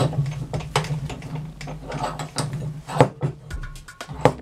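Metal bench vise being tightened onto a chainsaw bar: irregular clicks and clanks of the vise handle and jaws, with a sharp knock about three seconds in and another near the end.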